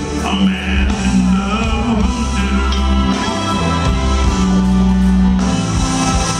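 Live R&B band music played loud and steady, with a singer's voice over the band.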